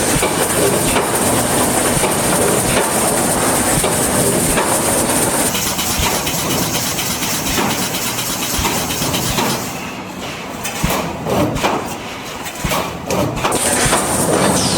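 Automatic wire mesh fence welding line running: continuous mechanical clatter with repeated clicks and knocks over a steady high whine. The whine drops out about five seconds in and returns near the end, with a quieter stretch of separate knocks between.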